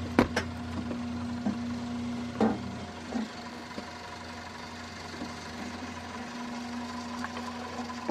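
AO Spencer Model 935 microtome automatic blade sharpener running with a steady motor hum. A few sharp clicks and knocks come through it, the loudest just after the start and another about two and a half seconds in.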